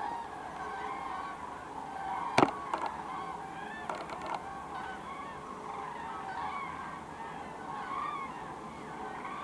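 A large flock of common cranes calling, many overlapping calls at once. A sharp knock about two and a half seconds in, with a few smaller clicks around four seconds.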